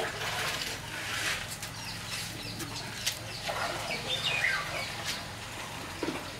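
Birds chirping in short calls, one clear falling call about four seconds in, over a steady low hum and a few scattered clicks.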